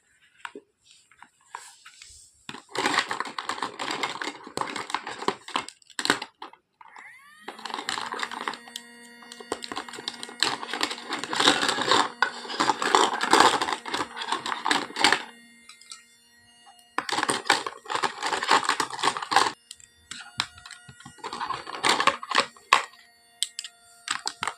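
Small plastic toy kitchen pieces clicking and clattering in several bursts. A steady hum joins about seven seconds in and carries on underneath.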